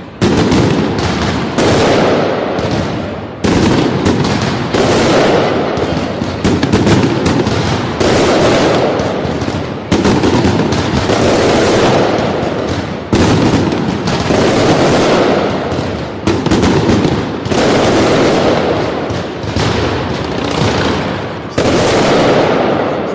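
Fireworks going off in dense, rapid volleys: a near-continuous barrage of crackling bangs, with a fresh loud burst every second or two.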